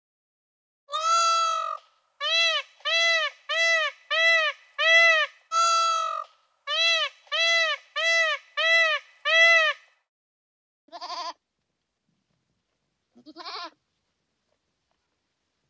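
An animal calling: a run of about a dozen short, clear, evenly spaced calls, a little over one a second, followed by two short, rougher calls a couple of seconds apart.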